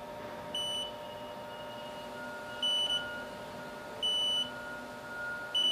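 Haas lathe running an automatic tool presetter probing cycle: four short electronic beeps, about a second and a half apart, over a steady machine hum from the live-tooling end mill spinning at 800 RPM.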